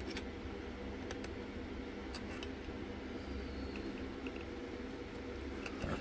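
Lock-picking tools working a Ruko cylinder lock: a few faint, scattered metallic clicks over a steady hum.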